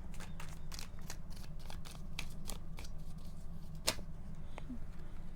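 Tarot cards being shuffled and handled: a quick run of light card flicks and snaps, with one sharper snap about four seconds in.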